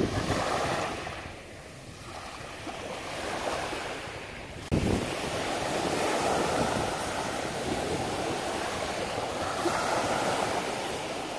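Small sea waves breaking and washing up a sandy beach, a steady wash of surf that jumps suddenly louder about five seconds in.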